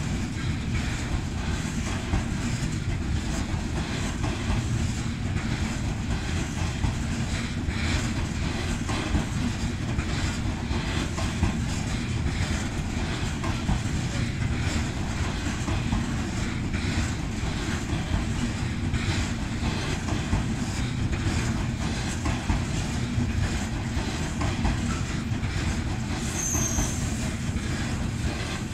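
Freight train rolling past, a steady rumble of wagons with the rapid clickety-clack of wheels over rail joints. A short high squeak near the end.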